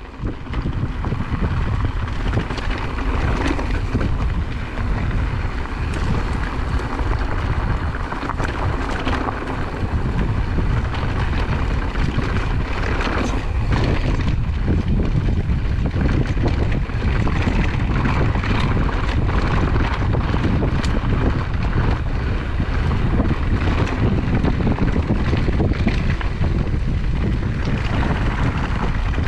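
Wind roaring on an action camera's microphone while a mountain bike descends fast over loose, bumpy dirt, with tyre rumble and many short knocks and rattles from the bike.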